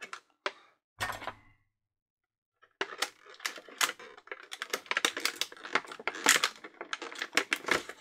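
Hands handling a plastic action figure and its packaging. There are a few sharp clicks and a short rustle, a pause of about a second, then dense, irregular clicking and crinkling from about three seconds in.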